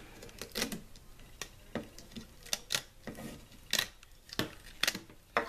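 Rubber bands clicking and snapping off the plastic pegs of a bracelet loom as the finished bracelet is lifted off: a dozen or so small, irregular clicks.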